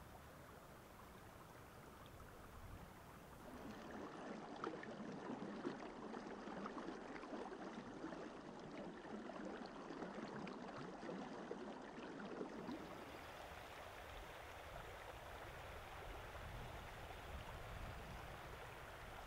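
Shallow creek water running and babbling over rocks, louder and more splashy for several seconds in the middle, then settling to a softer steady rush.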